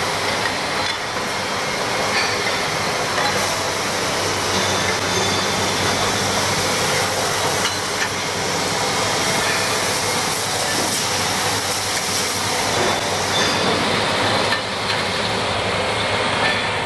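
Double disc grinding machine running, with large connecting rods feeding along its conveyor: a steady, dense mechanical rush broken by occasional clicks.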